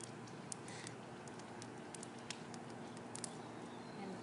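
Wood fire crackling in an open fire pit, with irregular sharp pops and snaps over a soft steady background.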